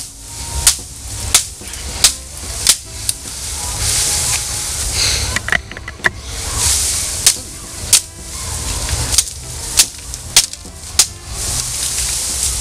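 Albatroz LD-101 stainless-steel survival knife chopping bamboo: a run of sharp strikes, about one every two-thirds of a second, then a few seconds of rustling from the bamboo stalks and leaves, then another run of strikes.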